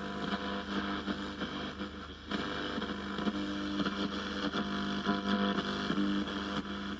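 Steady electrical hum over a hiss, with scattered faint clicks, from a radio-cassette player's speaker. The level dips briefly about two seconds in.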